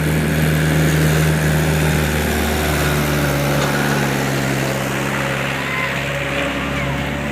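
Heavy diesel engine running steadily under load, its pitch dropping a little about two seconds in.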